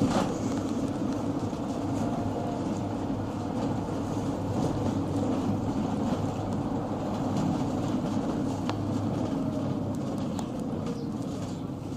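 Mercedes-Benz Sprinter minibus under way, heard from inside: a steady engine and road drone with a few small knocks and rattles.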